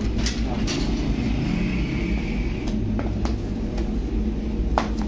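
Steady low machine rumble with a handful of short, sharp clicks and knocks over it, the loudest near the end.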